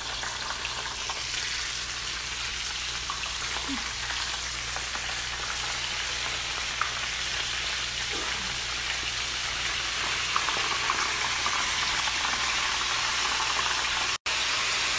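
Oysters coated in fish fry deep-frying in hot canola oil in a skillet: a steady sizzle that grows slightly louder, broken by a split-second gap near the end.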